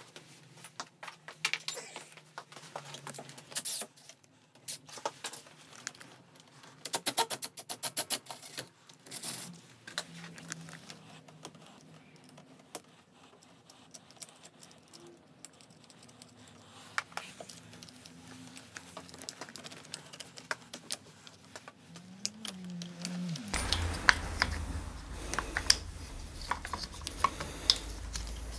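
Scattered clicks, taps and rattles of small plastic and metal parts being handled at a Yamaha NMAX 125 scooter's handlebar, from wiring and grip fitting. A low background rumble comes in about 23 seconds in, with denser clicking after it.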